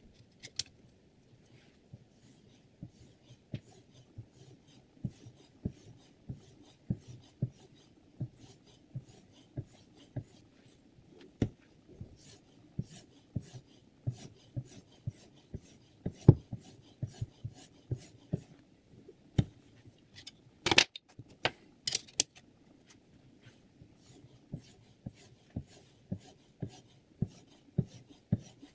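Abrasive stone on a Hapstone R2 guided-rod sharpener stroking along the edge of a clamped chef knife: a steady rhythmic scraping, about three strokes every two seconds. A few sharper knocks come past the middle.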